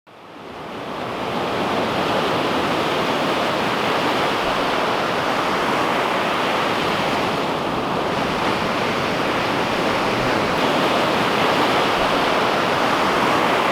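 Ocean surf washing onto a beach: a steady rush of waves that fades in over the first second or two.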